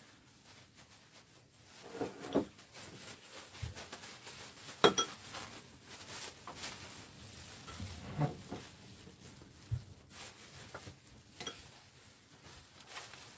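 Scattered light clicks, knocks and rustles of gloved hands handling gimbap fillings on a bamboo rolling mat over a wooden cutting board, with one sharp clink about five seconds in as the loudest sound.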